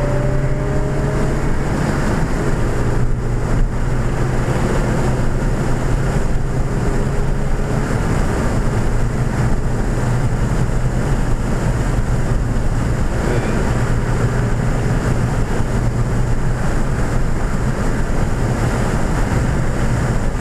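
Cabin sound of a 2014 Ford Fiesta ST at track speed: its turbocharged 1.6-litre four-cylinder engine makes a steady drone under loud, even wind and road noise.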